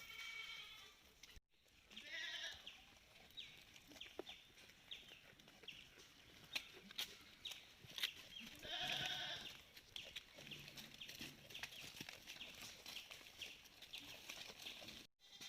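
Malabari goats bleating: a short bleat at the start, another about two seconds in, and a longer one around nine seconds in. Faint quick high ticks run in between.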